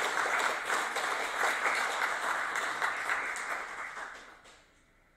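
Audience applauding, many hands clapping at once; the applause dies away about four seconds in.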